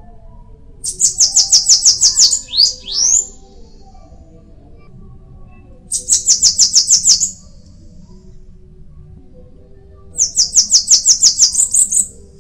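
Bananaquit singing: three bursts of song, each a fast run of high, thin notes lasting one to two seconds, the first ending with two quick upward-sweeping notes.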